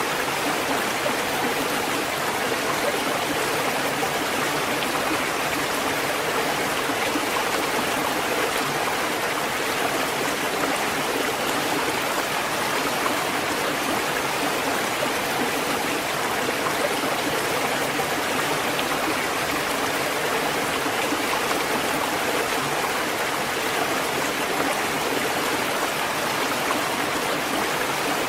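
Ocean surf washing on a shore: a steady, even rush of water noise with no distinct separate breakers standing out.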